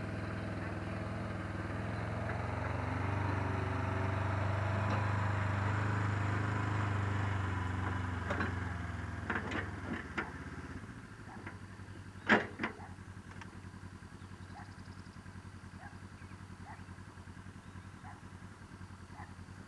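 A vehicle engine running steadily, swelling slightly and then easing off, shut off about ten seconds in. A few clicks and then a single sharp knock follow, and after that only faint regular ticks.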